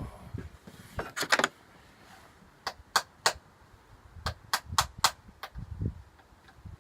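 Sharp clicks and light knocks of Stihl chainsaw parts being handled and pushed together by hand, about ten clicks in small groups, as a part is forced that will not seat.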